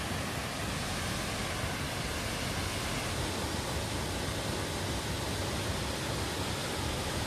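A waterfall rushing: the heavy, steady wash of falling water.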